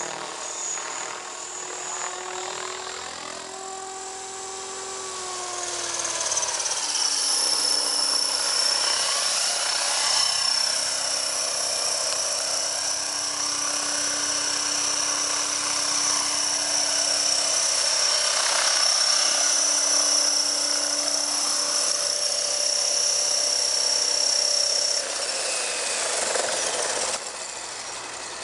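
Electric T-Rex 500 RC helicopter flying on a single counterweighted main rotor blade, giving a steady high whine from the motor and rotor. The pitch dips a few seconds in, then the whine cuts off near the end as it powers down on the ground.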